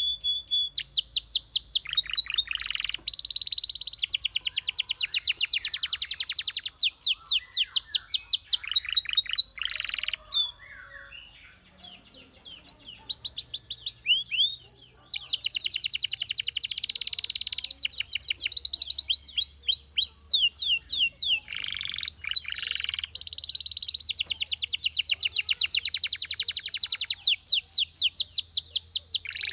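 Belgian canary singing: long rolling trills of rapid, high repeated notes, with a short break about halfway through before the song starts again.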